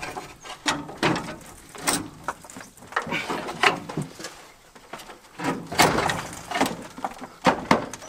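Hand work on metal parts in an old truck's engine bay: irregular squeaks, scrapes and sharp metal clacks, the loudest clacks about every two seconds.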